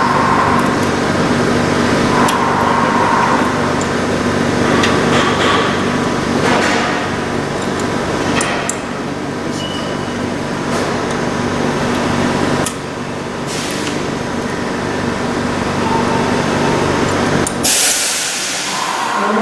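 LarsLap Model C1 valve grinder running steadily while grinding the gasket seating face in a safety valve's bore, with scattered clicks and knocks. Its motor hum stops near the end, followed by a short loud hiss.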